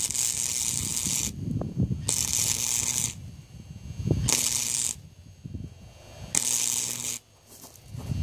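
Electric arc welding on a cast iron bracket: the arc hisses and crackles in four short bursts of about a second each, with brief pauses between them as the weld is laid in short runs.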